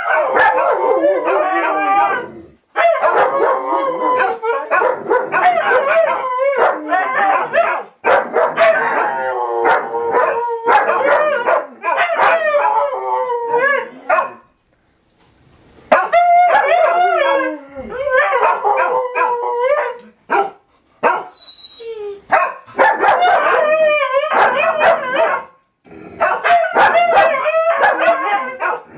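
Several dogs howling together in an overlapping chorus, a husky-type dog among them, with a short break about halfway through.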